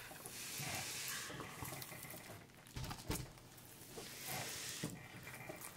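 Faint rustling and crinkling of a rolled diamond painting canvas and its clear plastic cover film as it is slowly unrolled, with a few soft ticks.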